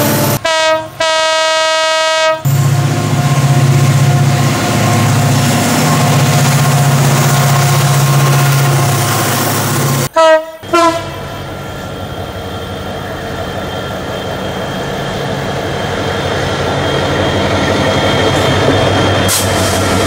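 Diesel-electric CC 205 locomotives of a long coal train. Near the start there is a horn blast, broken once early on. The engine runs with a steady low hum until about ten seconds in. After a sudden cut there is a short horn toot, then the rumble of the approaching train slowly grows louder.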